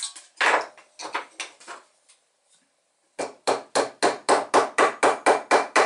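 A small hammer tapping on a wooden block: a few scattered taps, then after a short pause a quick, even run of about eleven blows, roughly four a second.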